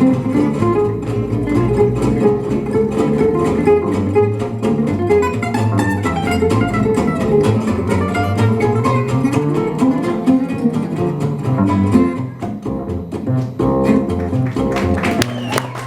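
Gypsy jazz band playing: acoustic guitars over a plucked double bass line, with the rhythm guitar's steady strummed chords beneath a busy lead melody. The music dips briefly in level near the end.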